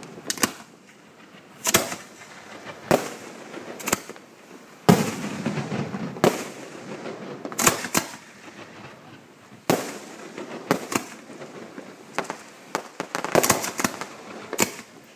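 Aerial fireworks shells bursting: sharp bangs about every second or so, each with a short rumbling echo, and a quick run of several bangs near the end.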